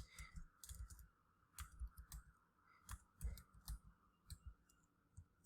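Faint, irregular clicks of computer keyboard keys and a mouse, each a short knock with a sharp tick, over a faint steady hum.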